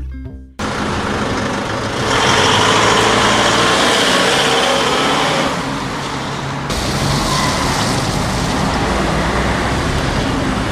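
City street traffic: steady road noise from passing cars and buses, louder for a few seconds after about two seconds in. A music track fades out in the first half second.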